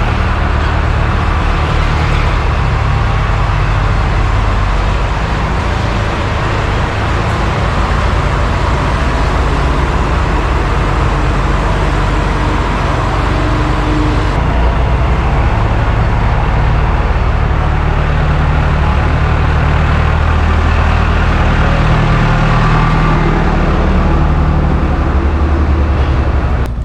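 Farm machinery engine running steadily close by: a loud, continuous low rumble whose pitch shifts slightly as it works.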